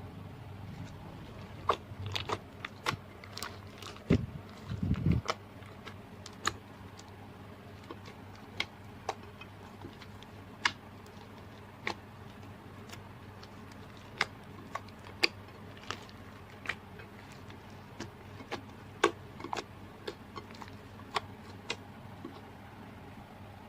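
Slime worked by hand, giving scattered sharp pops and clicks at irregular intervals, with a short low squelch about four to five seconds in.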